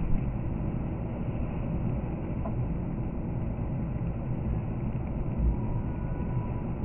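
Car cruising at about 86 km/h on a snow-covered expressway, heard from inside the cabin: a steady low rumble of tyres on snow and engine. There is one brief low thump about five and a half seconds in.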